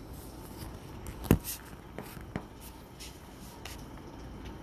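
Phone microphone handling noise, rubbing with a sharp click about a second in and a smaller click a second later, over a steady low background of the storm.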